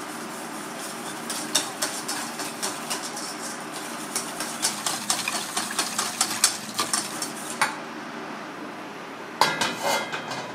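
Wire whisk beating a liquid sauce in a stainless steel bowl: a quick run of clicks and scrapes as the wires strike the bowl, stopping at about eight seconds. Near the end, a short metallic clatter with a little ringing, over a steady background hiss.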